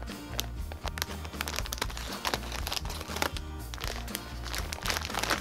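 Kinetic sand being squeezed and broken apart by hand, giving a run of soft, irregular crunching and crumbling sounds over background music.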